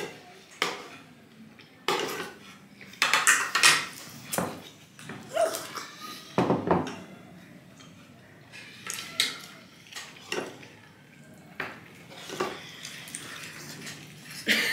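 Metal fork and spoons clinking and scraping against a ceramic plate and bowl during eating, in irregular sharp clinks about every second.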